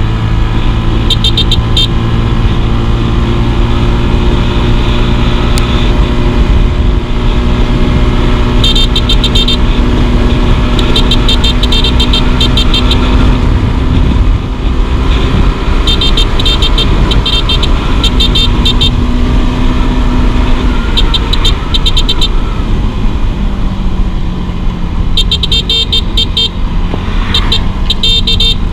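Motor scooter engine running steadily at cruising speed, with heavy wind rumble on the microphone. Short runs of rapid, even ticking come and go several times.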